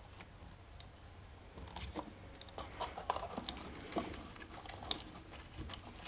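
Faint, scattered clicks and light rustling of small parts being handled, growing busier after the first second or so.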